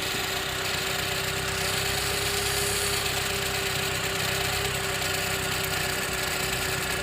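A 2017 Mini Cooper Clubman S's 2.0-litre turbocharged four-cylinder engine idling steadily, with an even hum running through it.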